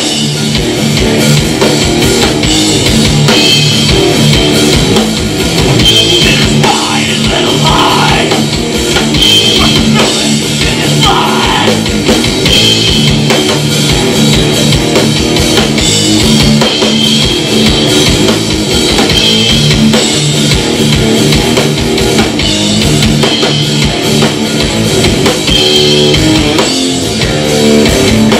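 Loud live rock band playing, with guitar and drum kit.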